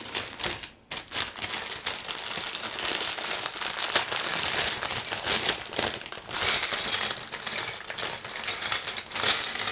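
Clear plastic bag of LEGO pieces crinkling as it is handled and opened, with the loose plastic bricks clicking against each other inside.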